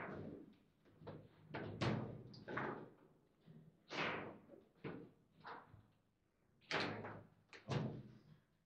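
Foosball table in play: sharp knocks and clacks as the ball is struck by the rod figures and the rods jolt, a string of separate impacts at irregular gaps, each with a short ringing tail.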